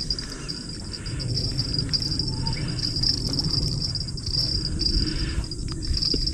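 Insects, crickets or similar, trilling in a steady high-pitched band with brief breaks, over a low, even rumbling noise.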